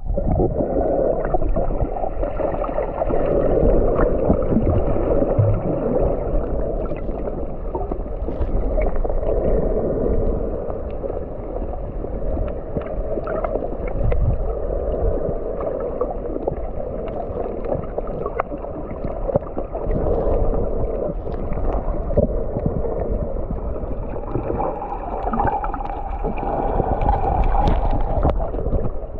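Steady, muffled rushing and gurgling of sea water with a low rumble underneath.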